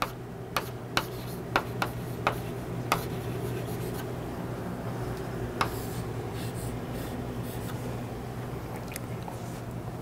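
Chalk on a blackboard: sharp taps in the first few seconds and once more near the middle, with scratching as a circle is drawn and words are written, over a steady low room hum.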